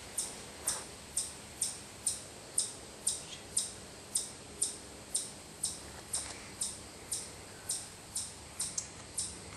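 An insect chirping outdoors: a short, high chirp repeated evenly about twice a second.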